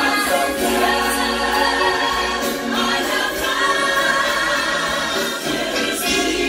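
A church choir singing a gospel song, led by soloists at microphones.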